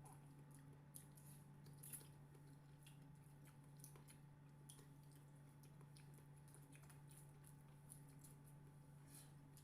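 Faint eating sounds: soft, wet chewing of fish and rice with small scattered clicks, over a steady low hum.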